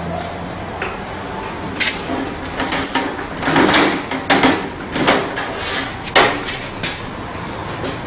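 Sheet-metal outer cover of a microwave oven being slid off its chassis, starting about two seconds in: a run of thin-metal scrapes, clunks and rattles.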